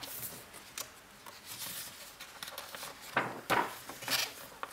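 Glossy pages of a large paperback book being turned and smoothed flat by hand: paper rustling and swishing, loudest a little after three seconds in.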